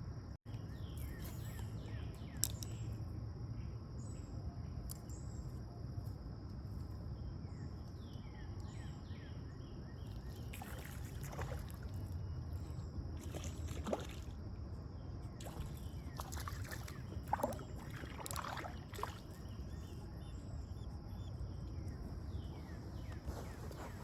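Outdoor creek ambience: a low steady rush of moving water, with small birds chirping on and off and a few sharper clicks or splashes in the second half.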